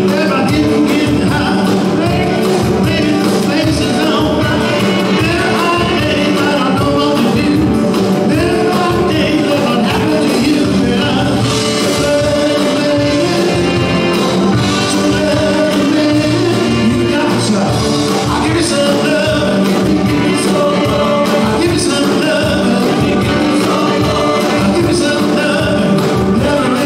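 Live band playing a song with singing.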